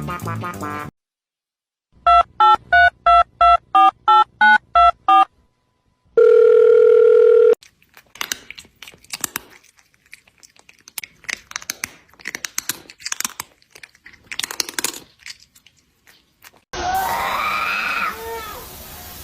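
Telephone keypad touch-tones: about ten quick beeps in a row, then a steady phone tone for about a second and a half, followed by faint scattered clicks and rustling. Near the end a loud sound with a wavering pitch starts.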